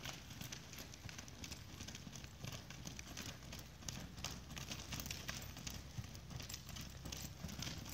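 Hoofbeats of a ridden horse moving on dirt arena footing: a continuous, uneven run of hoof strikes.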